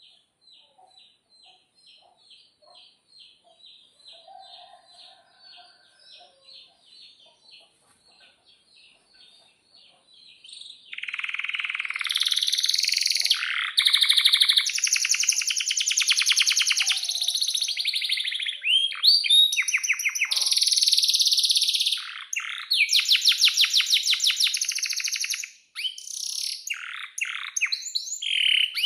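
Male canary singing: faint, evenly repeated high chirps at first, then about eleven seconds in a loud song starts, with long rapid trills (rolls), quick rising sweeps and short breaks between phrases.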